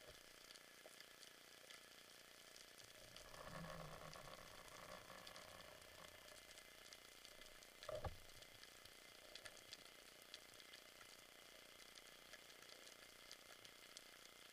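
Faint underwater crackling and ticking, the steady background of the sea as heard through a camera housing while freediving. A soft rushing swell comes about three to five seconds in, and a single short knock, the loudest sound, about eight seconds in.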